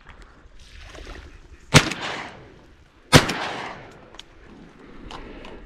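Two shots from a 28-gauge shotgun, about a second and a half apart, each with a short trailing echo.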